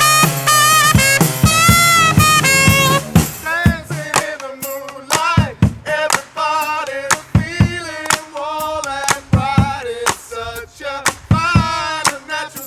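Live brass band of trumpet, trombone, baritone saxophone and drum kit playing an upbeat pop tune. About three seconds in, the full held horn chords drop away, leaving the drums with a single melodic line.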